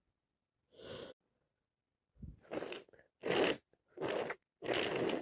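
A woman with a head cold sneezing over and over. A short breath comes about a second in, then from about two seconds in a rapid string of sneezes and gasping in-breaths, each less than a second apart, loudest near the end.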